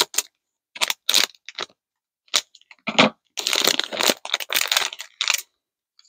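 Plastic candy wrapper crinkling as it is opened by hand, in a string of irregular rustles with short gaps between.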